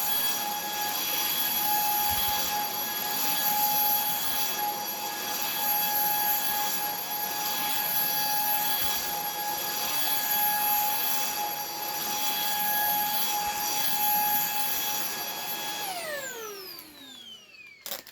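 Puweike cordless stick vacuum running with a steady high motor whine over the hiss of suction. About sixteen seconds in it is switched off, and the whine falls in pitch as the motor spins down, followed by a click near the end.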